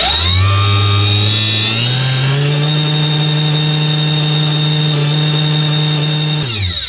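Kobalt 40V brushless lawn mower motor running with no load on a 60 V battery at over 10,000 rpm. Its whine rises quickly as it spins up, climbs again about two seconds in, holds steady, then falls as it winds down near the end.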